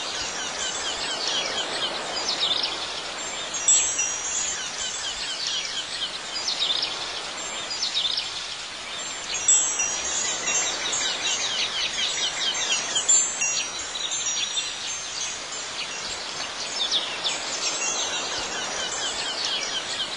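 Ambient soundtrack of high tinkling chimes and many quick chirps running without a break, with a few brighter, louder chime strikes about four and ten seconds in.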